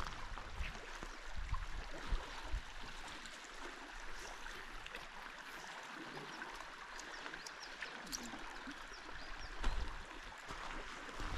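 Steady rushing and gurgling of a mountain river's flowing water, with a few faint clicks and knocks.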